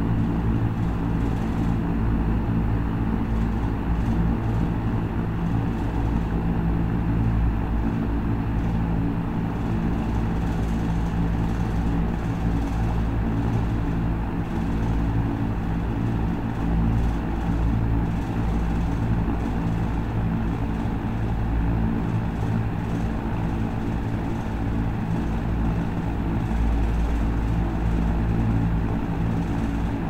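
Electric fan running steadily: a constant low motor hum under an even rush of moving air.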